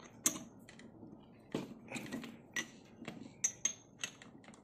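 Chuck key turning in the toothed keyed chuck of a Black+Decker 550 W hammer drill, tightening a drill bit: about ten irregular metallic clicks and clinks as the key's gear teeth work against the chuck's gear ring.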